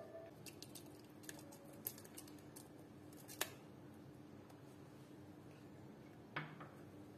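Soaked red chilli flakes being added to a glass grinder jar: faint wet handling with a few sharp clicks against the glass, the loudest about three and a half seconds in.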